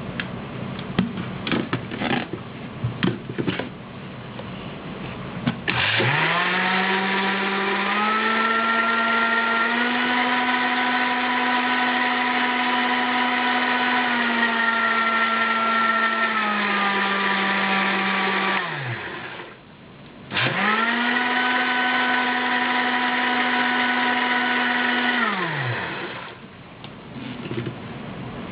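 GTM-8302 electric blender motor. After some clicking and handling, the motor starts about six seconds in with a steady whine, steps up in pitch twice, drops back, and winds down. It starts again a moment later, runs at a high pitch for about five seconds, and winds down again, followed by a few clicks.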